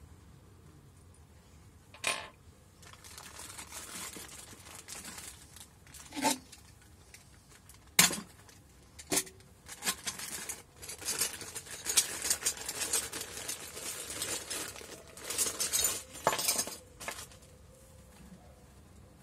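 Steel bolts and nuts clinking as they are handled and set down, with several sharp clicks, between long stretches of a plastic parts bag crinkling.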